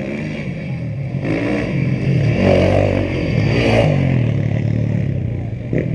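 Off-road rally motorcycle engine revving hard as it approaches on the dirt track, its pitch climbing and dropping repeatedly through gear changes, loudest about midway.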